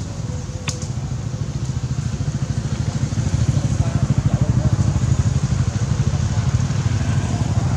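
Motor vehicle engine rumbling low and steady, growing louder from about three seconds in.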